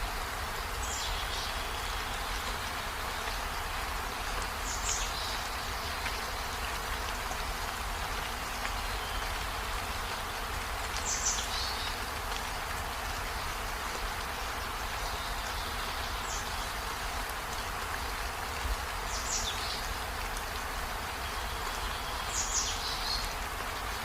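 Steady rain on trees and a window, an even hiss, with short high descending calls cutting through six times.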